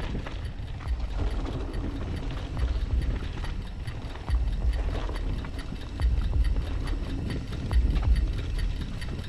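A mountain bike rolling down a rough trail, its frame and parts rattling and knocking over the bumps, with wind buffeting the microphone in gusts.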